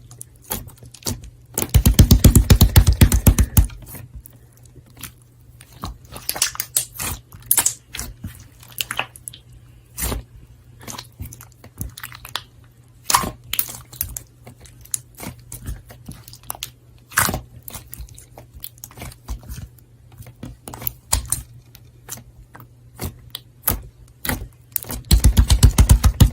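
Clear ice slime being pressed and handled, crackling in sharp scattered pops. Two longer runs of dense, rapid crackling come about two seconds in and again near the end.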